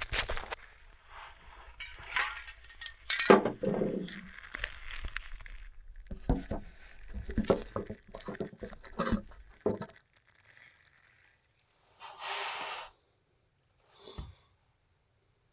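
Scraping, rubbing and light metallic clinks of hand work on greasy machinery, then a short hiss about twelve seconds in and a shorter one just after.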